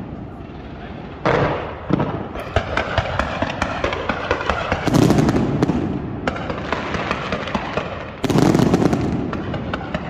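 Fireworks going off: sharp bangs about a second in and again soon after, deep booms about five and eight seconds in, and dense crackling from the burst effects between them.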